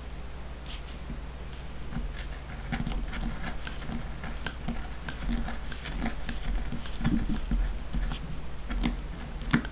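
Hobby knife taking many small cuts through the corner of a leather piece, rounding it over against a small metal anvil: an irregular run of light clicks and snicks.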